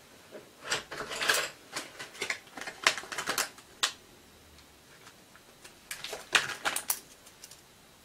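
Light clicks and taps of pens and drawing tools being handled on a desk. They come in three irregular clusters: about a second in, again from about two to four seconds, and once more around six to seven seconds.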